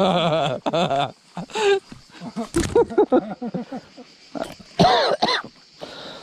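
A man's voice making short, broken vocal sounds that slide up and down in pitch, with a few words mixed in.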